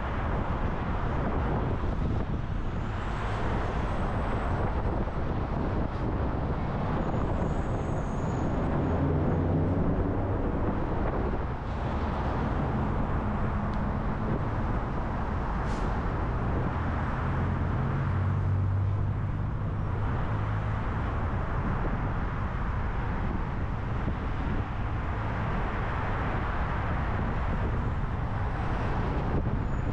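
Steady road and traffic noise from a car driving on a highway, with tyre and wind noise; a low engine drone swells up twice, about a third and about two-thirds of the way through.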